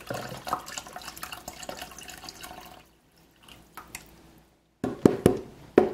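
Chicken bone broth pouring from a carton into a slow cooker, a steady splashing stream for about three seconds that then stops. A few sharp knocks near the end.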